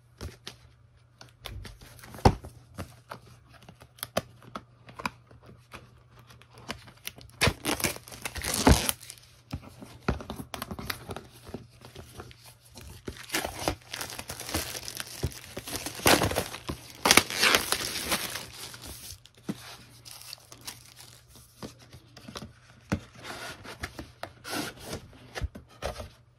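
Plastic shrink-wrap torn and peeled off a cardboard product box, crinkling and rustling in irregular bursts with sharp crackles. The two loudest bursts come about a third and about two-thirds of the way through.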